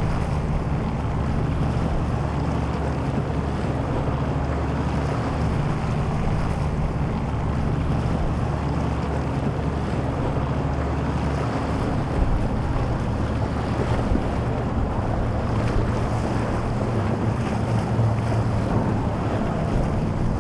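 Outboard boat engines running in a steady low hum, with wind buffeting the microphone and the wash of choppy water.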